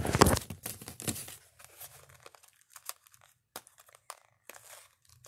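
Close handling noise as the phone is set down, loudest in the first second, followed by faint rustling, crinkling and small clicks of a paper mailer package being worked open by hand.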